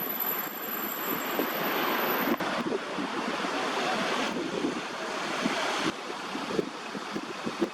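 Wind gusting across the microphone and through the trees, a rushing noise that swells and eases. A thin high-pitched whine stops about two and a half seconds in.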